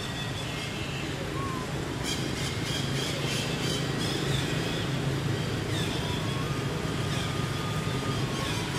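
Steady low hum like a running engine, with short high chirps and squeaks over it, thickest a couple of seconds in.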